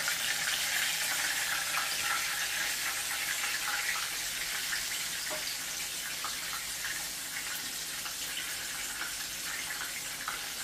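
Pork-and-beef meatballs sizzling in hot oil in a skillet: a steady hiss with small pops and crackles.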